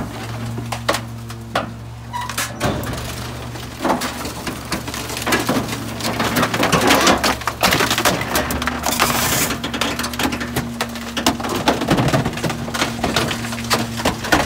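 Rear-loader garbage truck's hydraulic packer blade sweeping through the hopper, crushing bulky waste with a run of cracks and splintering snaps over the steady hum of the engine. The cracking gets busier about a third of the way in, and a steady hydraulic whine joins a little past halfway.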